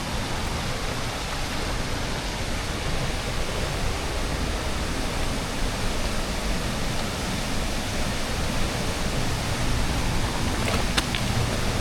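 Rushing water of a fast woodland stream and waterfall, a steady unbroken roar. A couple of short clicks near the end.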